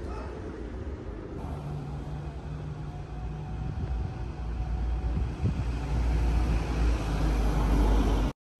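Street traffic: a car engine hums steadily under a low rumble that grows louder toward the end, then the sound cuts off suddenly.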